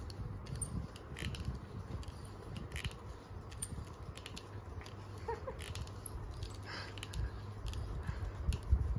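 Soft rustling and handling noise as a hand strokes a small white dog on a bedspread, with scattered light clicks.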